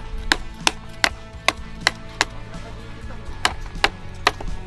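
Hammer striking an upright piece of firewood to split it: sharp wooden knocks, about three a second, seven in a row, then a pause of about a second and three more.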